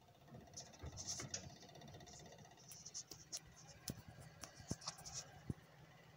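Faint steady hum of a desktop PC's fans running just after power-on, with irregular light clicks and scratches throughout.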